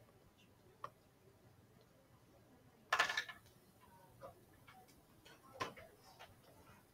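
Quiet classroom with sparse small clicks and ticks, a louder brief clatter about three seconds in and a sharper knock a couple of seconds later.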